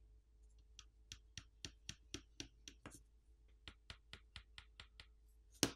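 Light clicks of small tools and parts being handled on a bench: a run of sharp clicks, about four a second with a short pause midway, then one louder click near the end.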